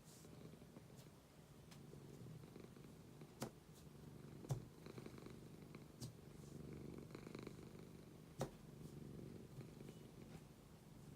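Domestic cat purring steadily and softly, with four short sharp clicks spread through it.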